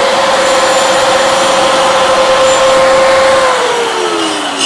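A DCA mini dustless table saw with a 4-inch blade runs at a steady whine while a short piece of wood is cut to length. It is switched off about three and a half seconds in, and its pitch falls as the blade spins down.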